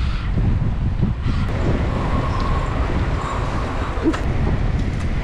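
Steady wind rumble on the microphone of a camera moving along a road, mixed with road noise, with one short click about four seconds in.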